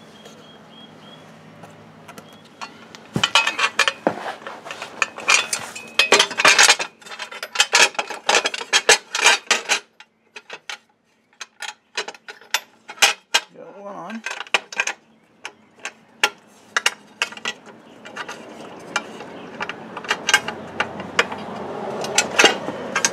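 Ricochet aluminum A-arm guard plate and its mounting bolts being handled and fitted against a UTV's front A-arm: irregular metallic clinks and clicks as the bolts are started by hand, with a short pause about midway.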